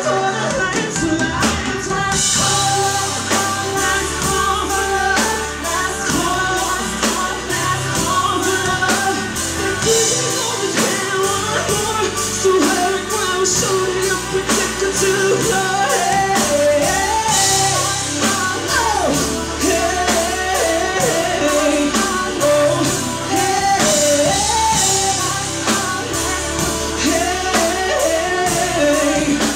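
Upbeat pop-rock song with a woman singing lead over a band: drum kit keeping a steady beat, with electric guitars.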